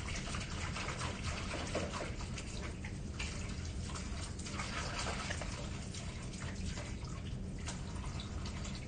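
Water running and splashing in a kitchen sink during washing-up, with small clinks and clatter scattered through it over a low steady hum.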